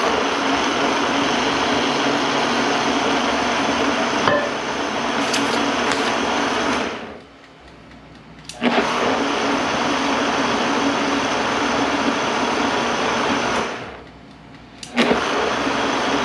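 Vitamix blender pureeing a mole sauce of sautéed onion, garlic, spices and vegetable stock, running with a steady motor whir. About seven seconds in it winds down to a stop, restarts abruptly a second and a half later, then stops and starts again the same way near the end.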